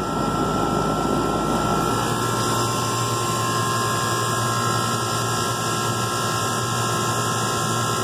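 1995 Janitrol heat pump outdoor unit running in cooling mode: a steady hum from the compressor and condenser fan, with a steady whine over it.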